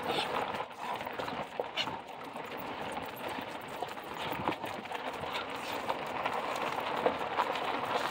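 Two leashed dogs trotting on a gravelly road: their footfalls make irregular light clicks over a steady rushing noise.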